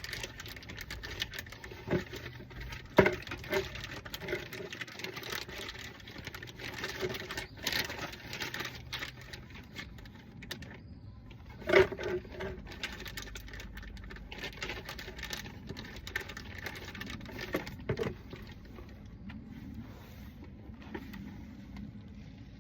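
Irregular clicking, clattering and knocking of hand tools and car parts being handled, with a few sharper knocks.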